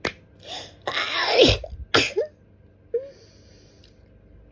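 A person sneezing in a dusty, tickly sneezing fit: a quick intake of breath, then a loud sneeze about a second in and a shorter one just after.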